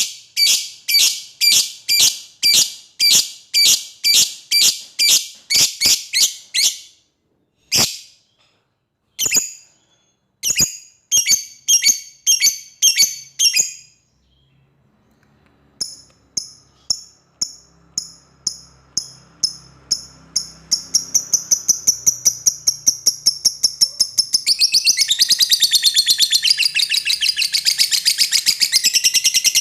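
Lovebird calling: sharp high chirps, evenly spaced about two to three a second, stop about seven seconds in and come back in a few scattered runs. From the middle on they quicken into a rapid trill that swells near the end into a long, louder chattering trill, the drawn-out 'ngekek' call a lovebird gives to challenge a rival.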